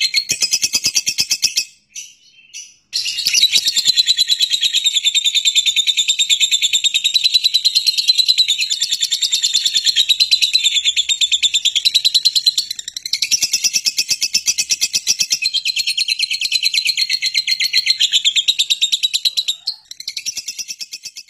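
Fischer's lovebird ngekek: a long, very fast chattering trill of high repeated notes, broken by a short pause about two seconds in and fading out at the end.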